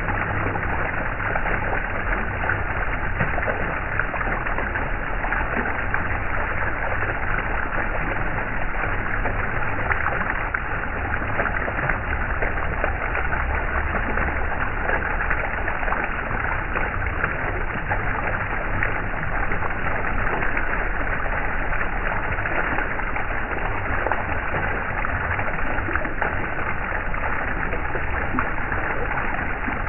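Water flowing steadily, like a stream, as one unbroken rushing sound.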